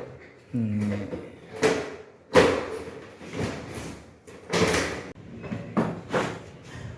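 Irregular knocks and bangs, several sharp hits a second or more apart, the loudest a little over two seconds in, with a brief low hum about half a second in.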